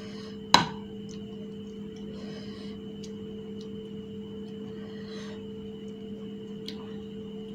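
A metal spoon clinks sharply against a bowl once, about half a second in, then scrapes softly as it stirs through mashed filling. A steady hum runs underneath.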